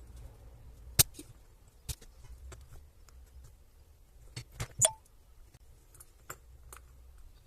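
Scattered sharp clicks and taps, a handful of them, the loudest about a second in and a quick cluster a little past the middle, over a low steady hum: small tools and the plastic drill battery pack being handled while its charging socket base is desoldered.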